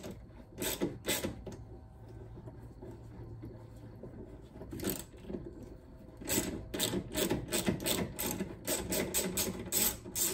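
Ratchet with an 8mm socket clicking as a long bolt is backed out: a few clicks about half a second in, then a steady run of about four clicks a second through the second half.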